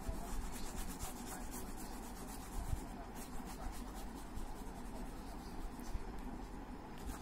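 Grey crayon rubbed back and forth on paper in quick repeated shading strokes, a steady scratchy rubbing.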